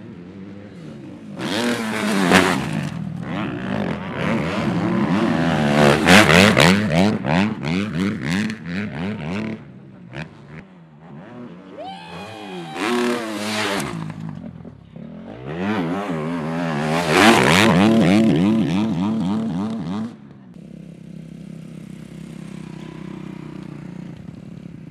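Four-stroke single-cylinder engines of Suzuki RM-Z250 motocross bikes revving hard through the gears, in several loud passes whose pitch climbs and drops. From about 20 seconds in, a steadier, quieter engine drone.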